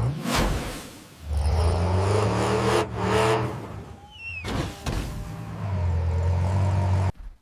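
A vehicle engine running steadily in two stretches with a low hum, with whooshing noise around it, cutting off suddenly near the end.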